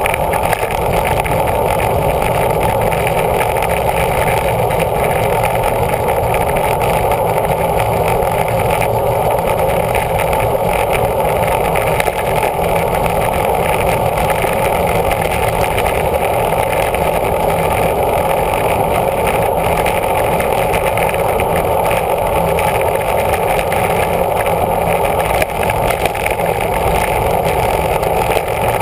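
Steady rushing wind noise on a bike-mounted camera's microphone, with road and tyre rumble underneath, from a road bicycle ridden at speed.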